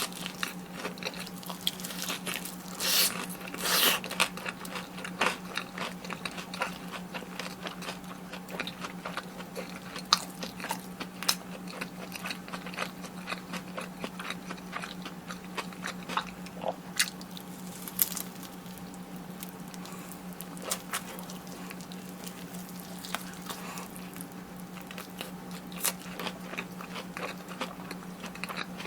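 Close-miked eating of crunchy fried food: crisp bites and chewing, densest in the first few seconds and then scattered, over a steady low hum.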